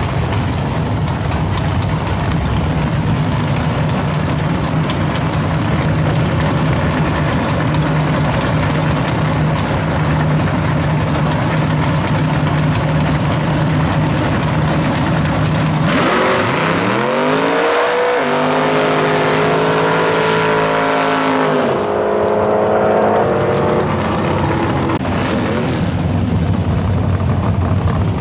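Drag-racing car's engine running steadily at the line, then launching: the note rises sharply and climbs through several gear changes as the car runs down the strip.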